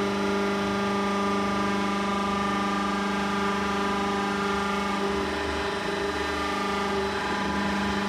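Vertical hydraulic baler's electric motor and hydraulic pump running with a steady hum of several held tones. The sound turns rougher for about two seconds a little past halfway.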